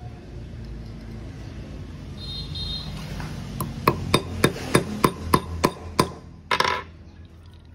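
Hammer tapping a small hex key, used as a punch, about eight quick metal-on-metal strikes at roughly three a second, driving the steel retaining pin out of a manual copper-tube flaring tool. A brief rattle follows near the end.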